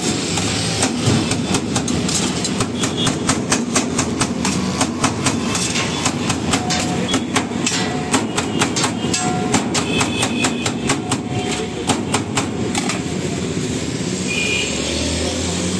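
Knife chopping shawarma meat on a steel tray: rapid metal-on-metal strikes with short clinks, stopping near the end, over steady background noise.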